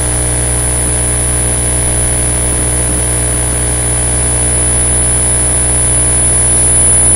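Steady electrical mains hum and hiss with a thin high-pitched whine on top, unchanging throughout.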